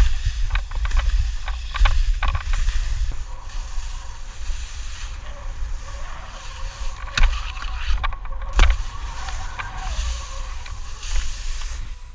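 Wind buffeting a body-worn camera's microphone during a downhill ski run, a heavy steady rumble, with skis hissing and scraping over packed snow. A few sharp knocks from the skis come through, the loudest near the middle of the run.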